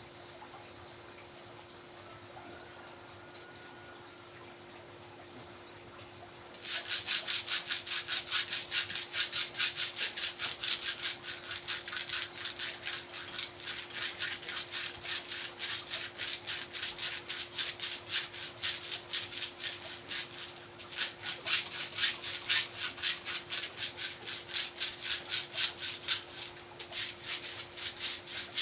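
Fast, even rubbing strokes on skin, a dry rasp several times a second, starting about seven seconds in. Before it come a couple of short high chirps, under a steady faint hum.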